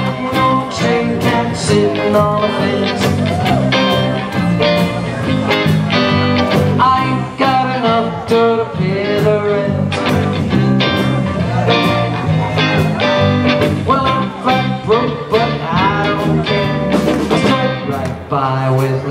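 A live band playing a song on electric guitars, electric bass and a drum kit, with a steady beat of drum and cymbal strikes.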